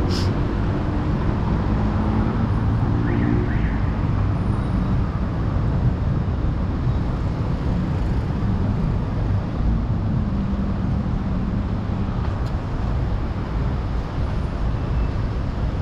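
Steady road-vehicle noise: an engine and traffic rumble holding at an even level.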